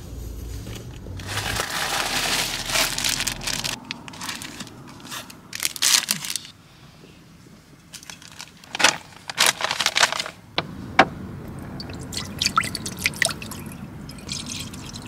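Handling noises of cooking preparation: a hissy stretch of noise lasting about two seconds near the start, then scattered clinks and knocks of utensils and containers.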